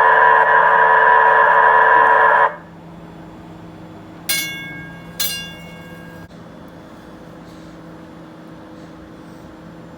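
Nippon Sharyo P865 light rail car's horn sounding a loud, sustained multi-tone chord that cuts off suddenly about two and a half seconds in. Its warning gong then strikes twice, about a second apart, each ring fading away.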